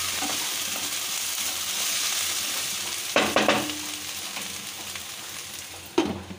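Taro stolons (kochur loti) sizzling in hot oil in a wok while being stirred with a spatula, the sizzle slowly fading. A sharp knock about three seconds in, and near the end the glass lid knocks onto the pan.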